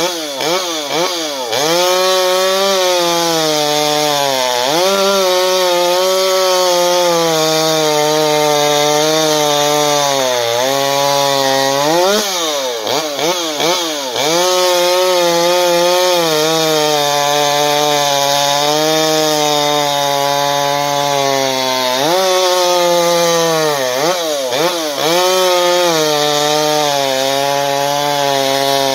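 Stihl MS 250 two-stroke chainsaw with its muffler baffle removed, running near full throttle while cutting wood. Its engine note sags and climbs back several times as it loads and unloads in the cut.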